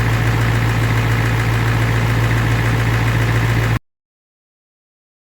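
Ford 7.3 IDI V8 diesel idling steadily with an even, fast clatter, then cutting off abruptly about four seconds in.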